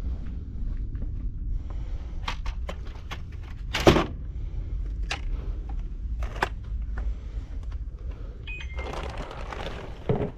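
Irregular sharp clicks and knocks, the loudest about four seconds in, over a low rumble, with a rush of hiss near the end.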